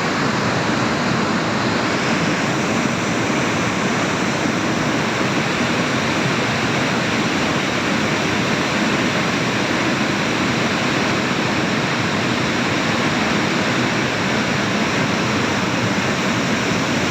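Floodwater of a mountain stream in spate rushing steadily: a loud, even, unbroken rush of water.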